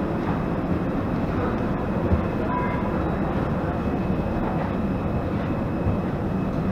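Steady low rumble and hiss of machinery in an airport jet bridge, with a faint steady high whine above it.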